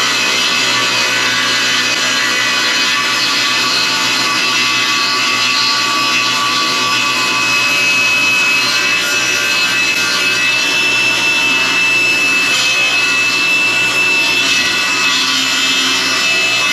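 Laguna Fusion F1 table saw ripping a white oak board lengthwise with its factory blade. The blade keeps up a steady high whine over the dense, continuous cutting noise.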